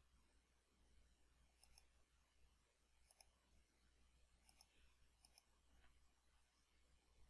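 Faint computer mouse clicks, each a quick double tick of press and release, four times, over a low steady electrical hum.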